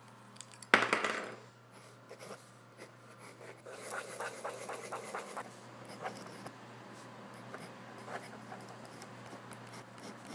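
Pen scratching on paper in short strokes, as a symbol is drawn and words are written by hand. A sharp knock about a second in is the loudest moment, and a low steady hum runs underneath.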